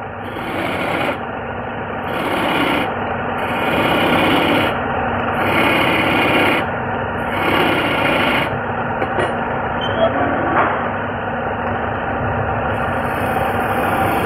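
A turning tool scraping and shaving the face of a wooden chakla spinning on a belt-driven wood lathe, with the lathe's steady running hum underneath. The rasping swells and eases in repeated passes through the first two-thirds, then holds steadier.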